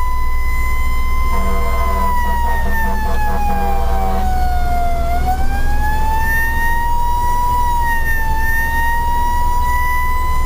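Fire truck siren on a slow wail, heard from inside the cab over a steady low engine and road rumble: the pitch holds, sinks over about three seconds, then climbs back and holds again. About a second in, a lower steady tone sounds along with it for about three seconds.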